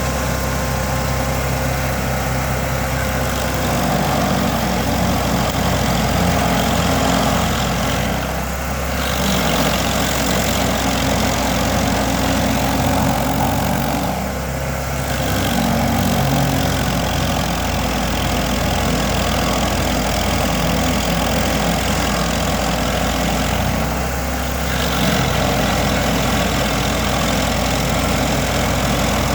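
Vermeer SC382 stump grinder's 37 hp engine running under load while its cutter wheel grinds into a dry hickory stump. The sound holds steady but eases briefly three times, as the load comes off the wheel.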